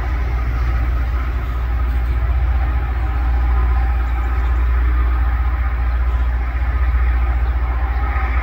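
Rail grinder train grinding the rail as it works the track: a steady loud rumble with a steady grinding whine on top.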